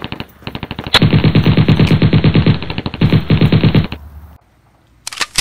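Machine-gun fire sound effect: a rapid, even burst of automatic shots lasting about three and a half seconds, then a brief pause and a few single shots near the end.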